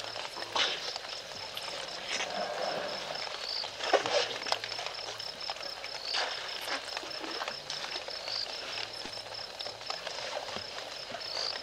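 African elephants drinking at a waterhole: irregular splashes and water being sucked up and squirted from trunks, with sharper splashes about four and six seconds in. A high, steady pulsing chirp repeats throughout.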